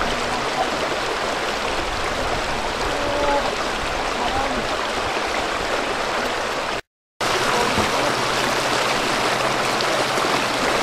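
Steady rushing and splashing of shallow, fast-flowing river water, with a brief drop to silence about seven seconds in.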